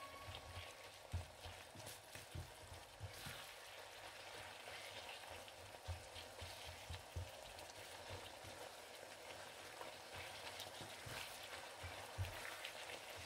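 Minced beef and onion sizzling faintly in a frying pan, stirred with two wooden spatulas that give soft, irregular knocks against the pan.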